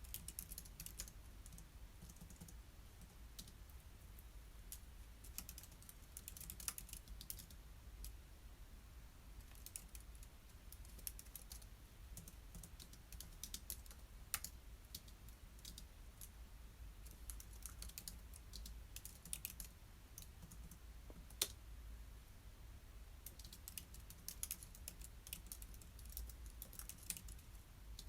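Faint typing on a computer keyboard: quick runs of keystrokes broken by short pauses, with one sharper, louder click about two-thirds of the way through.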